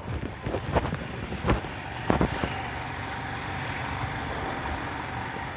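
Several knocks and clatters as the portable air compressor is moved, then a steady engine-like hum over the last three seconds.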